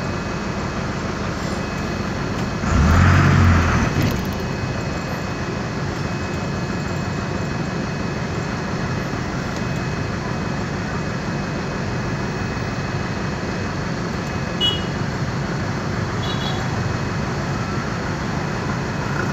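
Otokar M-2000 midibus's air-cooled Deutz diesel engine running steadily, heard from inside the bus as it moves through traffic. A louder burst of about a second comes some three seconds in.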